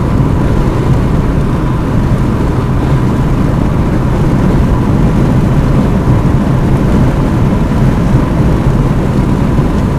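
Steady road and engine noise inside a car cruising at highway speed, a constant low rumble without breaks.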